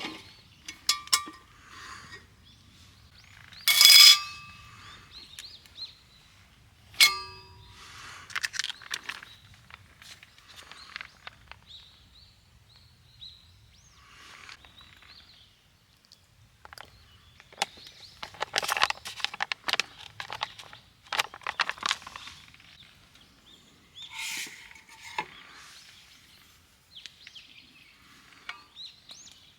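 Camp cookware and utensils clinking and clanking, with scattered knocks and clatter. Two metal strikes ring on briefly, the louder about four seconds in and another a few seconds later.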